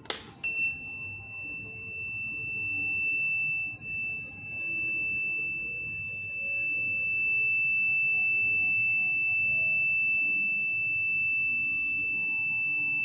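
A click, then the steam machine's piezo buzzer sounding one continuous high-pitched beep without a break. The buzzer sounding shows it is getting its 12-volt supply.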